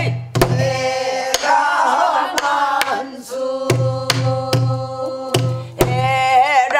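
A woman sings a long drawn-out syllable of a Korean folk song in a strong, full-throated style, her held notes turning into a wide, wavering vibrato near the end. She accompanies herself on a buk barrel drum struck with a wooden stick: about eight strokes on the head and rim, some with a low booming ring.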